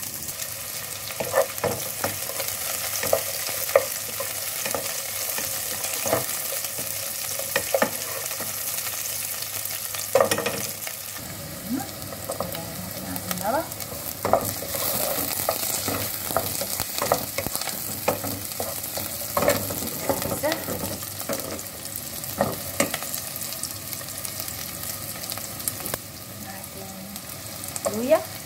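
Sliced onions sizzling as they sauté in a hot nonstick pot, stirred with a wooden spatula that scrapes and knocks against the pan many times.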